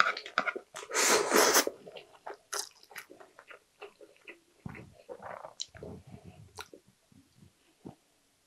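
A person slurping a mouthful of thick jjajang ramen noodles about a second in, then chewing with many small wet smacks and clicks that grow fainter toward the end.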